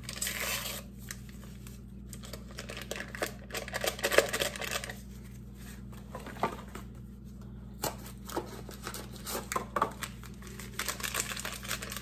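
Pudding-mix packets being torn open and crinkled by hand over a stainless steel saucepan: irregular rustling and tearing with a few sharper clicks.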